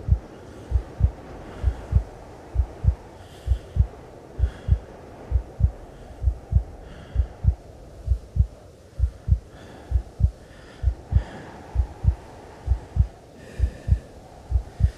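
Heartbeat, a sound-design effect: paired deep thumps, lub-dub, about once a second at a steady pace, over a low hum.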